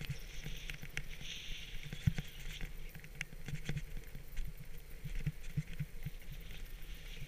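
Steady hiss and scrape of snow under a rider sliding down a groomed trail, heard from a helmet-mounted camera, with irregular low knocks from bumps jolting the helmet, the strongest about two seconds in.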